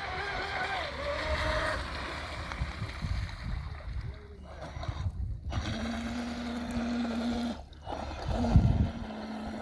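Radio-controlled speedboat's electric motor whining as it runs, its pitch dipping about a second in, then a steadier low hum that drops out briefly twice. Wind rumbles on the microphone throughout.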